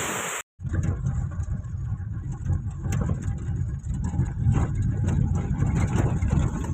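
Car driving, with a steady low engine and road rumble heard from inside the cabin. About half a second in, a windy hiss from the beach cuts off abruptly before the rumble begins.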